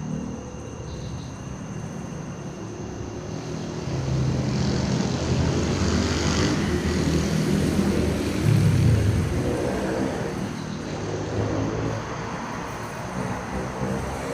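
Engine noise of a passing vehicle, swelling to a peak about six to nine seconds in and then easing off over a steady low rumble.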